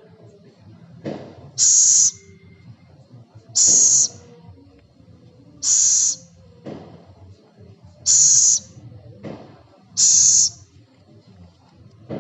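A celepuk (scops owl) giving five harsh, high hisses, each about half a second long and roughly two seconds apart, with fainter lower rasps between them.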